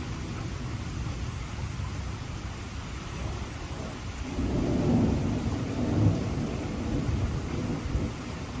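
Steady rain falling, with a low roll of thunder swelling about halfway through and fading away over a few seconds.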